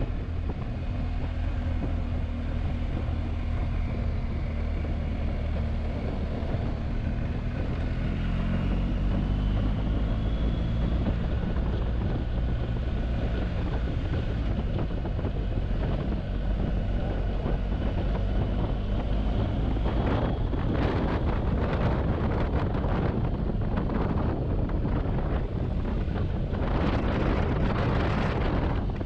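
Large twin-cylinder adventure motorcycle engine running under way, rising in pitch as the bike accelerates partway through. Heavy wind rush buffets the microphone throughout and surges strongly near the end.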